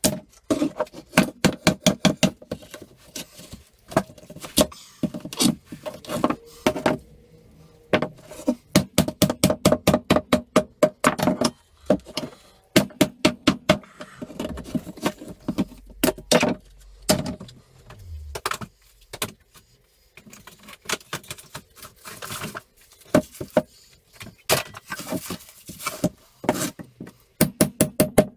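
Claw hammer striking pallet wood in runs of quick blows, several a second, with short pauses between, as pallet boards are knocked apart.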